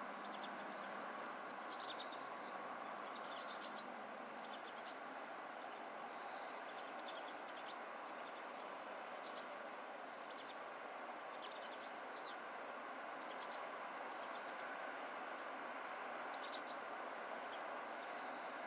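Steady hum of distant road traffic on a bridge, with short, high chirps from small songbirds scattered throughout.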